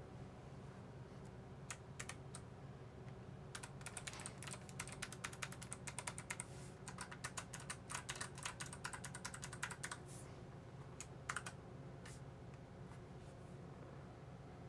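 Typing on a Havit low-profile mechanical keyboard with Kailh low-profile blue tactile switches: a few scattered keystrokes, then about six seconds of fast continuous typing, and a short flurry of keys later on.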